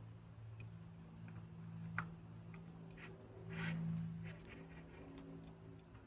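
Light clicks and brief rustling from bike parts and tools being handled, with one sharper click about two seconds in and a short scraping swell just before the four-second mark, over a steady low electrical hum.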